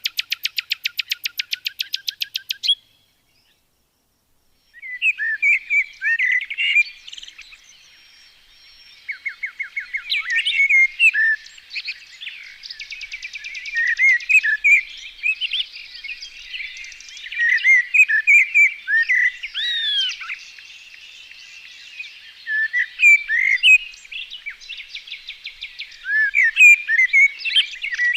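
Small birds calling and singing: first a fast, even trill of rapid pulses that stops about three seconds in, then after a short gap a busy run of short chirps, whistled slides and warbling notes that goes on to the end.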